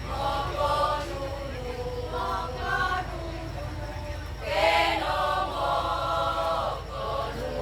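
A choir singing held chords that shift in steps, swelling louder and brighter about four and a half seconds in, over a steady low hum.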